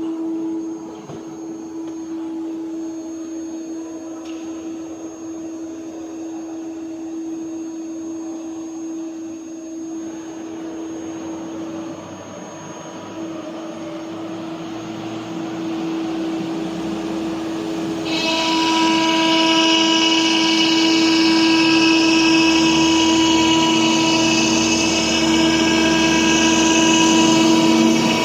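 Mini ATC CNC router's spindle running with a steady whine. About two-thirds of the way in, the sound gets louder, with a higher hiss and extra whining tones joining.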